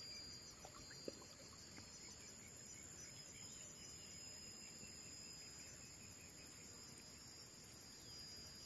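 Faint, steady, high-pitched insect chorus, with a single soft click about a second in.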